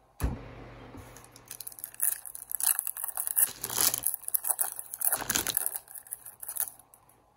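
A hockey card pack's plastic-foil wrapper being torn open and crinkled in the hands. A sharp tear just after the start, then a few seconds of continuous crackling that stops near the end.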